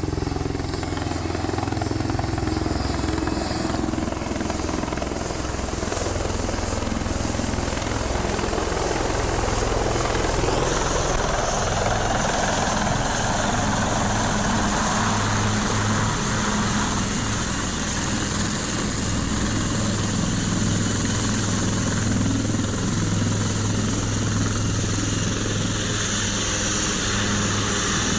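HAL Dhruv twin-turbine helicopter hovering low and landing, its rotors beating steadily. A high turbine whine comes in about ten seconds in and holds.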